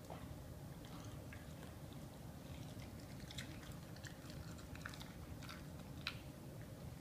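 Pit bull chewing a raw bull penis: faint wet clicks and smacks of its jaws on the meat, mostly in the second half, the sharpest about six seconds in.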